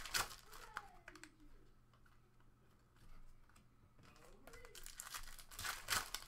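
Foil trading-card pack wrapper crinkling and tearing as it is handled and ripped open. The loudest crackling comes right at the start and again about six seconds in.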